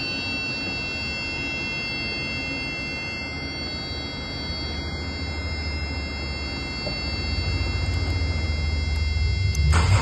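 A 2014 Infiniti Q40's engine being cranked and starting, a low rumble building over the last few seconds and a sharp burst near the end. It starts only with the ECM fed power directly through a jumper, the sign that the IPDM fuse box is not powering the ECM and is bad.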